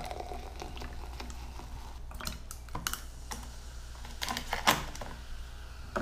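Coca-Cola poured from a can into a glass and fizzing, with scattered sharp clicks and taps from the can, glass and ice cubes.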